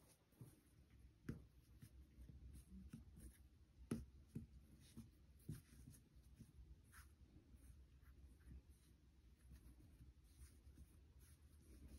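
Faint soft taps and rubbing of hands and soft dough on a silicone baking mat as two dough ropes are rolled and twisted together, with a sharper tap about a second in and another about four seconds in.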